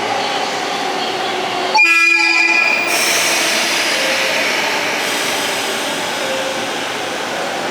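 Electric train horn sounding once for about a second, with a sudden start, over the steady rush and rumble of train running noise.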